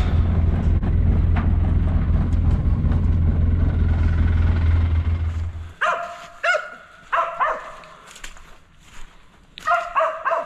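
Mountain cur barking, about nine short sharp barks, some in quick pairs, starting about six seconds in. Before that, a steady low rumble that cuts off suddenly.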